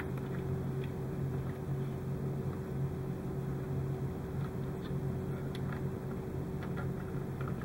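Steady low hum of a room's background noise, with a few faint light clicks and rustles from small wires being handled and pressed into place.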